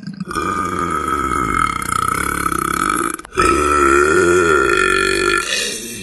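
A woman burping: two long, drawn-out belches. The first lasts about three seconds, then there is a brief break and a second one of about two seconds.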